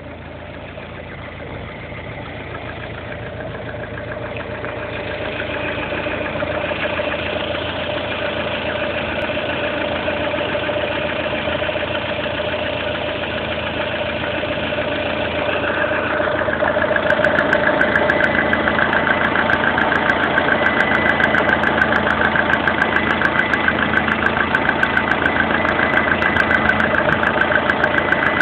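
Lada Kalina's 1.4-litre 16-valve four-cylinder petrol engine running at idle with a rapid, regular knock, the engine knock that is the fault in question. It grows steadily louder, and the knocking stands out more sharply from about 17 seconds in.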